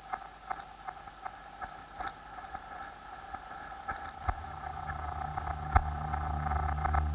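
Ambient soundtrack drone: a steady mid-pitched hum dotted with faint, irregular clicks, joined about four seconds in by a deep low drone that swells steadily louder.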